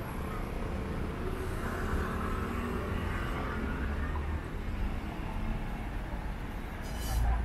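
Street traffic noise: a steady low rumble of cars and scooters passing on the road alongside. Near the end there is a short hiss along with a swell of engine rumble.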